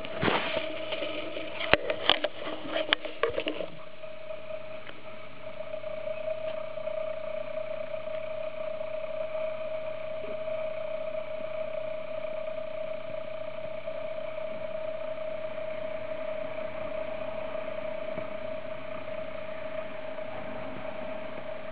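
Fleece blanket rustling with several sharp clicks as it is lifted, then a steady hum with a constant mid-pitched tone.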